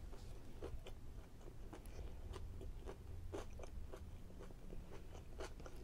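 A person chewing a mouthful of chicken fajita close to the microphone: faint, irregular wet mouth clicks and smacks, a few a second.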